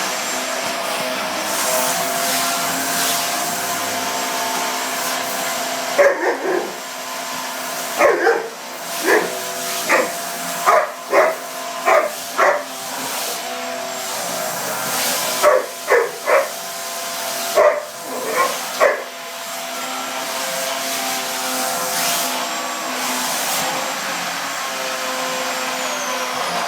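A vacuum cleaner runs steadily throughout while an Alaskan malamute husky barks at it: two bouts of short, sharp barks, the first starting about six seconds in and the second ending a little before halfway, from about fifteen to nineteen seconds in.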